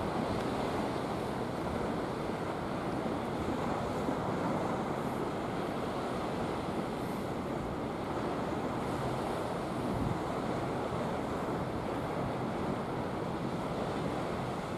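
Steady wash of sea surf among a concrete tetrapod breakwater, with wind noise on the microphone.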